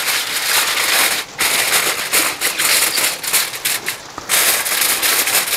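Aluminium foil crinkling and crackling as it is pressed and folded over a baking dish to seal it airtight.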